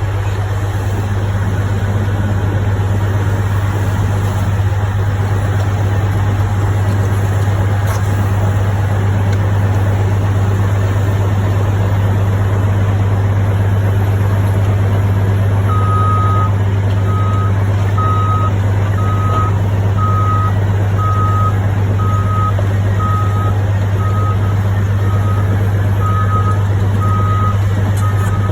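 Heavy diesel machine engine running with a steady low drone. A little past halfway a backup alarm starts: one long beep, then regular short beeps about three every two seconds.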